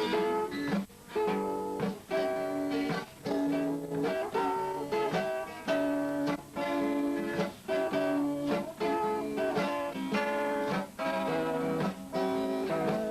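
Acoustic guitar playing plucked and strummed chords as an instrumental break between sung verses of a bard song.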